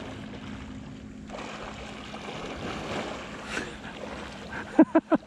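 Gentle water lapping and wind noise around a paddleboard on calm water. Near the end comes a quick cluster of short, loud, pitched blips.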